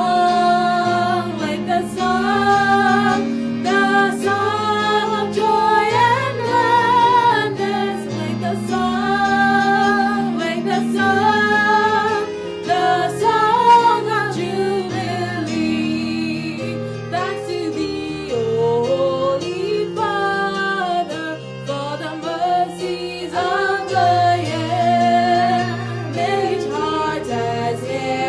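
Two women singing a hymn with instrumental accompaniment.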